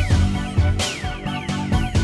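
Electronic background music with a steady bass beat and a repeating falling synth figure.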